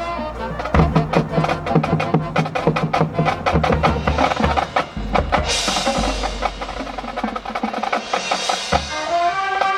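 Marching band percussion section playing a fast, busy passage: rapid drum strokes under pitched mallet percussion notes, with cymbal crashes about halfway through and again near the end, as the winds come back in at the very end.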